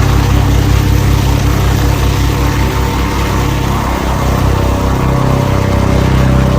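The Agusta Caweel CW-86's engine running steadily, with a rapid low pulsing beat under a steady hum, dipping slightly in level about midway.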